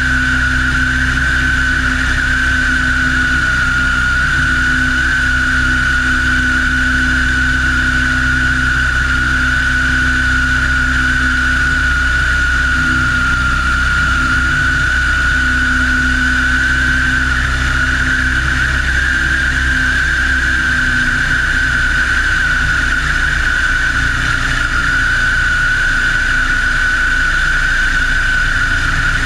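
De Havilland Tiger Moth biplane's engine and propeller running steadily in flight, a constant drone with a steady high whine over it.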